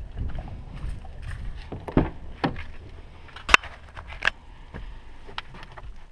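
Irregular handling noises: items being shifted and rummaged, with scattered rustling and several sharp knocks and clicks, the loudest about three and a half seconds in.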